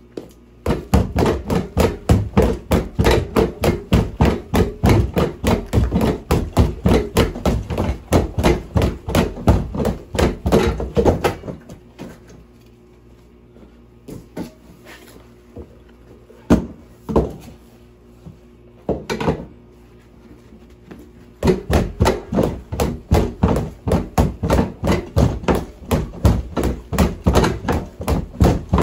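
Gloved punches landing on an Everlast free-standing punching bag: fast flurries of thuds, several a second, broken midway by a pause of several seconds with only a couple of single hits, then another flurry near the end.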